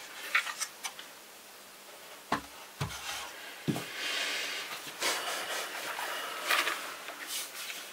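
Handling noise from the stripped plastic chassis of a robot vacuum: a few light clicks, then three dull knocks as it is set down on a cloth-covered table, followed by a few seconds of cloth and hands rustling.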